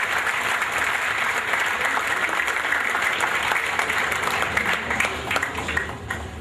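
Audience applauding, with many hands clapping at once. Near the end it thins to a few separate claps and dies away.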